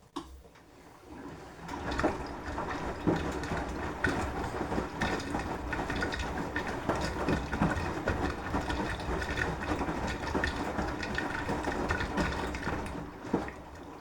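Beko washing machine drum turning during the wash phase, with water sloshing and clothes tumbling. It builds up over about two seconds, runs with irregular knocks and splashing, then stops near the end.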